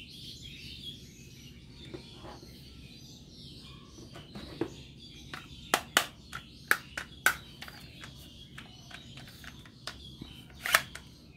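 Sharp plastic clicks and knocks as a plastic toy gun is picked up and handled, a cluster about halfway through and two more near the end. Faint bird chirping in the background.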